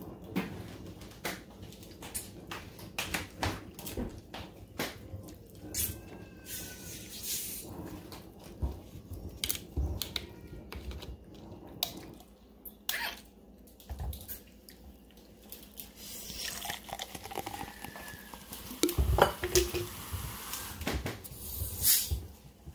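Crab leg shells being snapped and picked apart by hand, a string of sharp cracks and clicks. In the later part a bottle of Coca-Cola is handled and poured into a glass, with a fizzing, splashing hiss.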